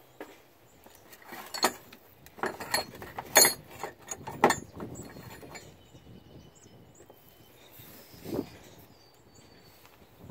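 Hand tools knocking and clicking against engine parts during turbocharger installation work: a run of sharp knocks in the first half and one more about eight seconds in.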